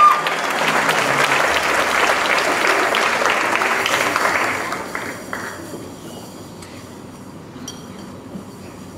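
Audience applauding, with the clapping dying away about five seconds in.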